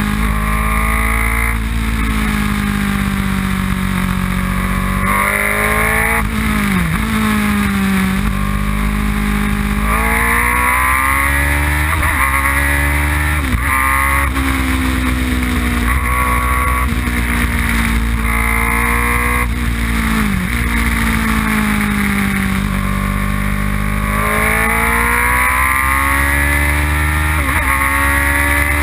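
Open-cockpit track car's engine heard from on board, driven hard around a circuit. The revs climb and fall back several times: pulling through the gears, then lifting and braking for corners.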